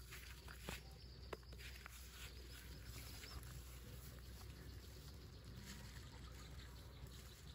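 Faint outdoor ambience: a low steady hiss with a few soft clicks, the sharpest about a second in, and a faint high whine between about one and three seconds in.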